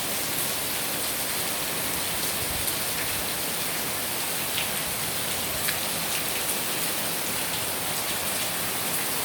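Heavy rain falling steadily, with a few sharper ticks of single drops striking nearby surfaces.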